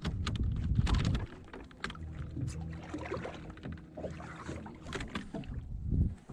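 Sounds of a fishing kayak on the water: scattered knocks and clicks against the hull over a low rumble that is loudest in the first second and again near the end.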